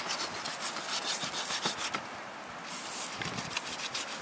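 Knife blade cutting and scraping along a raw lamb rib rack, slicing meat and fat away from the ribs in a run of short scrapes, with a brief lull about two seconds in.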